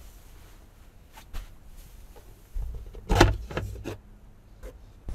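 A bench-seat cushion and wooden lid panel being handled and lifted out: light rustling with a couple of small knocks, then a low thud and a cluster of wooden clunks about three seconds in.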